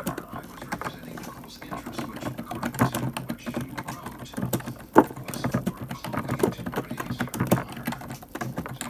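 A string of irregular light clicks and knocks over a low murmur, with one sharper knock about five seconds in.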